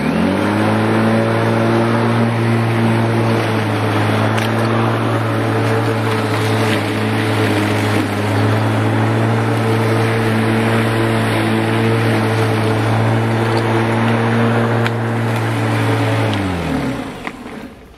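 Bosch Rotak 34R corded electric rotary lawn mower's 1300 W motor and blade switching on and spinning up within a split second, then running steadily while the mower is pushed across the lawn. About a second before the end it is switched off and winds down, its pitch falling away.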